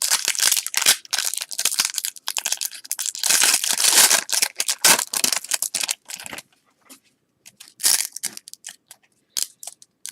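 Trading-card pack wrapper being torn open and crinkled, a dense crackling for about six seconds, then scattered short crinkles and ticks.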